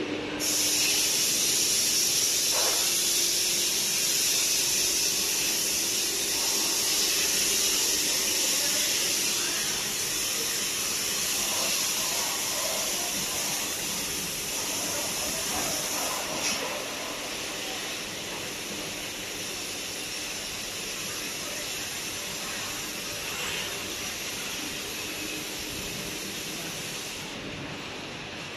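Steady gas hiss from a laser welding machine. It starts abruptly, grows slowly quieter, and its highest part cuts out shortly before the end.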